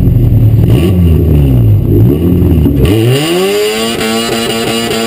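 Four-cylinder dirt-track race car engine revving up and down. About three seconds in, the sound changes abruptly, and the engine climbs to a steady high-pitched run.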